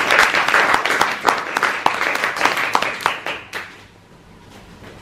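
Audience applauding, the clapping thinning out and dying away after about three and a half seconds.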